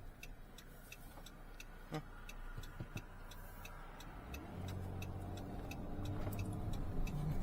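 A car's turn-signal indicator ticking steadily, about three clicks a second, over the car's engine and road noise in the cabin. The engine and road noise grow louder about four and a half seconds in.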